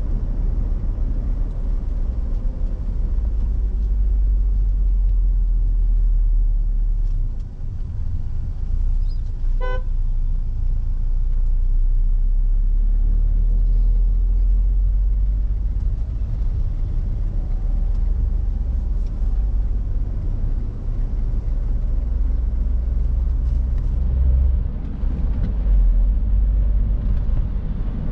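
Peugeot 406 driving, a steady low road and engine rumble, with one short vehicle horn toot a little under ten seconds in.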